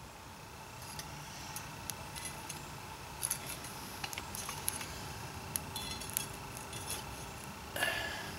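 Charcoal briquettes clinking and scraping against a steel folding shovel and the stainless steel mucket's lid as coals are scooped up and set on top: scattered light clinks, with a louder scraping clatter near the end.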